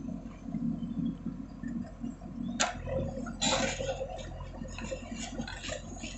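JCB 3DX backhoe loader's diesel engine running steadily, with a sharp clank about two and a half seconds in, followed by a rushing, scraping noise of soil being moved.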